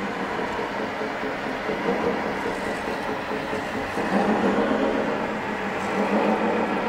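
Radio-controlled model truck running, a steady engine-like drone that changes in character about four seconds in.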